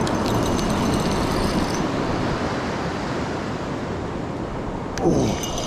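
Spinning fishing reel being cranked, a fast whirring tick, for the first couple of seconds and again near the end, over a steady wash of surf. About five seconds in there is a brief, loud falling sweep.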